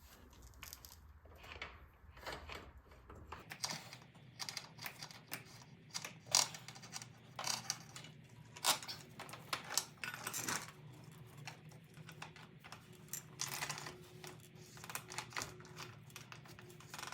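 Irregular metallic clinks and rattles of a motorcycle drive chain and its small metal parts being handled during a chain swap.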